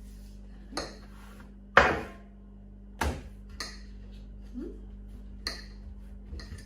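Kitchenware clattering as things are set down: a handful of sharp knocks and clinks, the loudest about two seconds in, with lighter ones after it.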